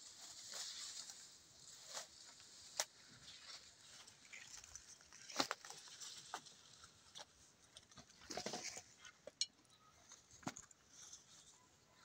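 Fig leaves and branches rustling, with scattered sharp clicks and knocks as green figs are picked by hand and dropped into a glass bowl.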